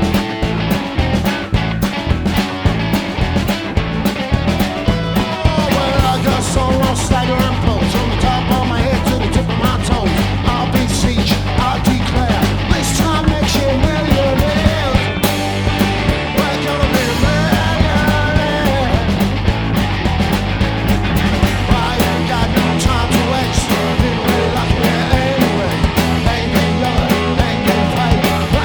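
A rock band playing live: guitar, bass and drums with a steady beat.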